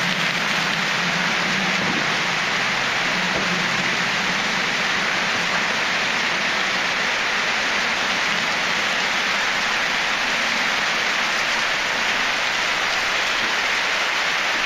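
A waterfall plunging down a limestone pothole shaft, with its spray falling: a steady, even rush of water without change.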